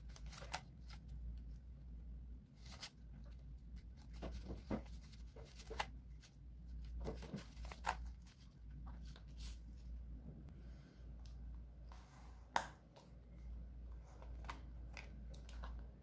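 Paper peso banknotes rustling and crinkling as hands sort them and lay them out, with scattered small clicks and taps of handling. A low steady hum runs underneath.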